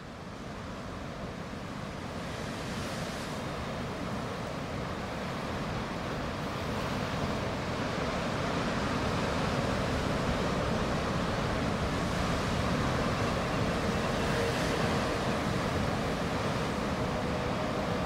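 Steady rush of ocean surf, fading in and growing louder over the first several seconds, then holding steady. A faint steady hum joins it about three-quarters of the way through.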